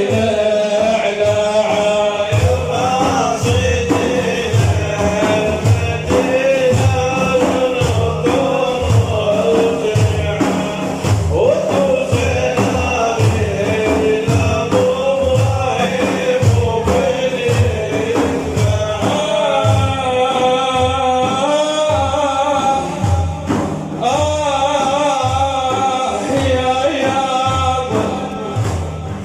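Men singing a devotional song in praise of the Prophet, several voices together, over a steady frame-drum beat of about two strokes a second.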